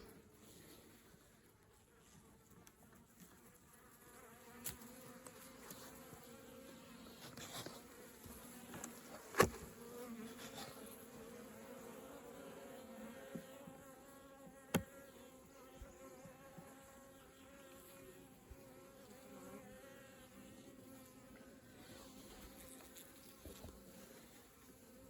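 A colony of honeybees buzzing in an opened hive, a steady hum that builds from about four seconds in. A few sharp knocks cut through it, the loudest about nine seconds in.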